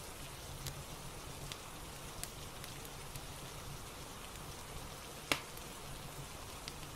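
Steady rain with the faint crackle of a fireplace: scattered light snaps, and one louder pop a little over five seconds in.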